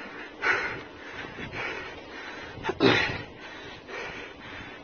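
Heavy, breathless breathing of a cyclist riding hard uphill, with two louder breaths about two and a half seconds apart over a steady rushing noise.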